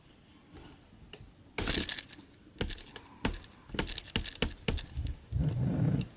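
Handling noise: irregular sharp clicks and knocks, several a second, starting about a second and a half in, with a heavier rubbing thud near the end.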